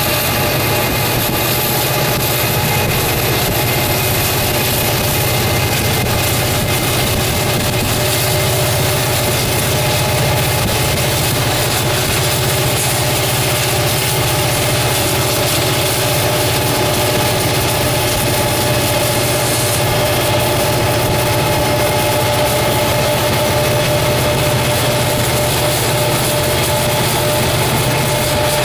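Steady engine and rolling noise from a Norfolk Southern diesel-electric locomotive running alongside, heard from inside a car pacing it. There is a constant low hum with a few steady tones over an even hiss, unchanging throughout.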